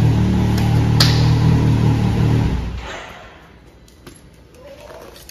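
A side-by-side UTV's electric winch motor runs with a steady mechanical drone, working again after repair, and then stops abruptly about two and a half seconds in. A sharp click sounds about a second in.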